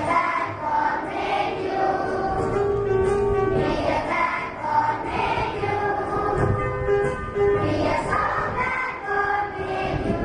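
A group of children singing a birthday song together in unison, the notes held and moving on steadily.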